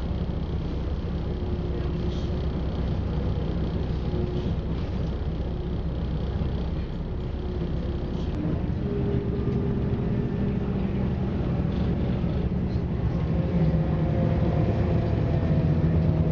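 Interior running noise of a Class 172 diesel multiple unit under way: a steady low rumble of wheels on rail and the underfloor diesel engine. From about halfway a few engine tones creep up in pitch and the noise grows slightly louder.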